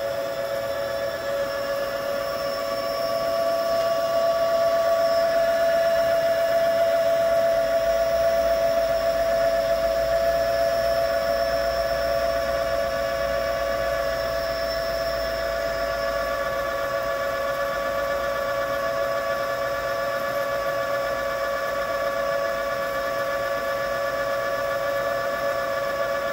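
Three-phase brushless motor driven by a high-voltage BLDC controller, spinning a Ford F-150 truck alternator under charging load: a steady electric whine made of several pitched tones, growing a little louder a few seconds in and then settling.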